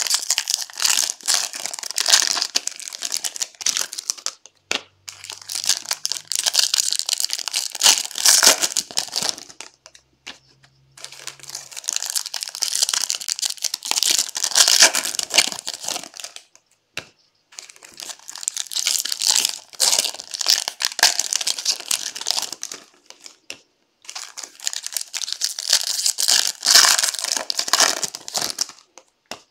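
Foil wrappers of trading-card packs crinkling and crumpling in the hands as the packs are torn open, in five bursts of several seconds each with brief pauses between.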